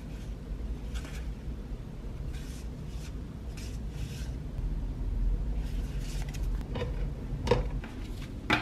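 Small paper cards being handled and fanned out, giving short soft rustles, then a few sharper clicks near the end as the card stack is set into a metal tin.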